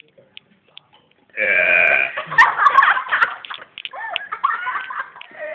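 A person burping loudly: one long, pitched burp begins about a second and a half in and breaks into rougher, uneven noise that lasts another second or so.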